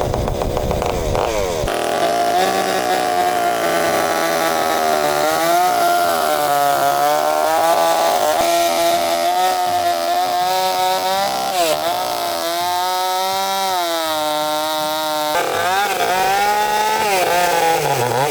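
Chainsaw running and cutting into a wooden log, its engine pitch wavering up and down as the bar bites in.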